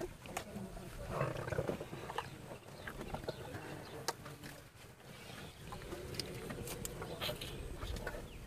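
Elephants feeding right beside the microphone: scattered crunching and rustling of greens, over low animal sounds.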